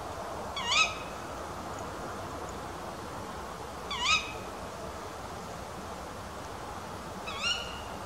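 Female tawny owl giving its short, sharp "kewick" contact call three times, about three and a half seconds apart.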